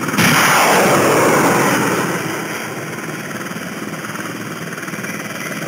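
Sound effect of a rocket-propelled grenade being launched: a sudden loud whoosh just after the start that fades over about two seconds into a steady rumbling noise.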